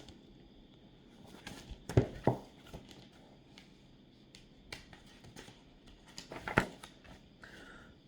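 Faint handling noises: a few soft knocks and rustles, with two sharper knocks about two seconds in and another cluster of knocks and rustles about six and a half seconds in.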